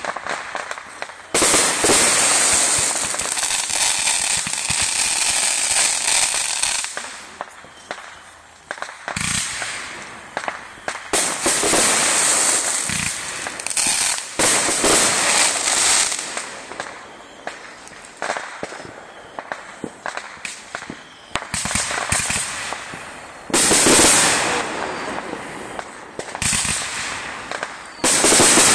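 Fireworks going off: a string of sharp bangs from bursting shells, several followed by several seconds of dense crackling.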